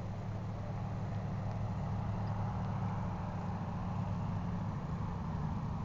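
A steady low machine hum, even and unbroken.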